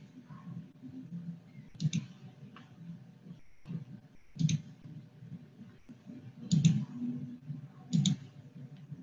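Several sharp clicks and knocks close to the microphone, spaced irregularly about every two seconds, over a faint low rumble.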